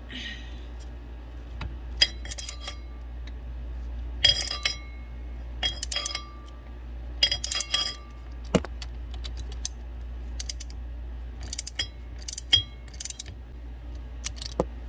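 Metal socket and wrench clinking and clicking against a bolt on the shifter linkage, in short bursts of rapid metallic clicks with a ringing tone every second or two. A low steady hum runs underneath.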